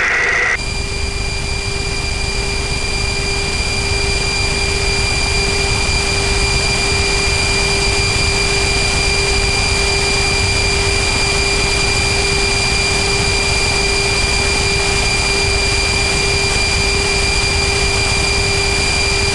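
Steady airflow and jet engine noise in an airliner cockpit in flight, with a constant low hum and two thin high whines running under it.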